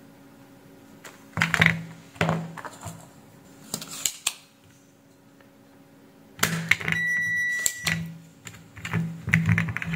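Clusters of small clicks and knocks from handling a soldering iron and a plastic desoldering pump on a circuit board. About seven seconds in there is one steady high electronic beep lasting about a second, as the digital multimeter next to the board switches itself off.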